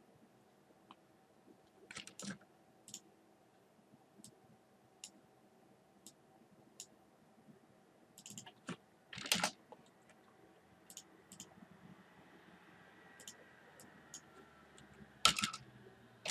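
Scattered clicks of a computer mouse and keyboard, one or two at a time with gaps between, over a faint steady hum. The loudest clicks come about nine seconds in and again near the end.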